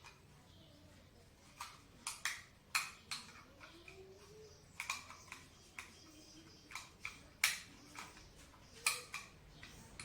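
A firearm being handled: irregular sharp clicks and knocks, about a dozen and a half of them.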